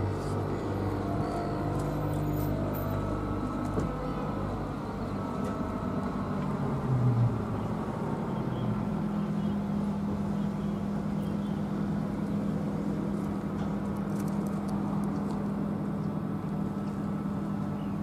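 Motor vehicle engines running in city traffic: a steady low engine hum with a brief louder swell about seven seconds in, then a steady low drone from about halfway.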